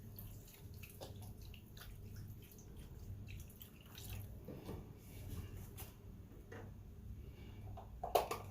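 Heavy cream pouring and dripping into a hot pan of buttery sautéed vegetables, faint liquid sounds over a steady low hum.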